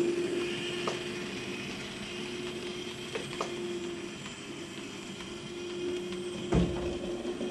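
HO scale model train running along the track, giving a steady mechanical hum. A few light clicks come about one and three seconds in, and there is a sharper, louder knock about six and a half seconds in.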